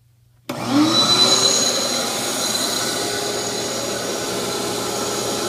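Shop-Vac 4.0 wet/dry vacuum switched on about half a second in: its motor spins up with a brief rising whine, then runs steadily and loudly, pulling vacuum for a lathe vacuum chuck.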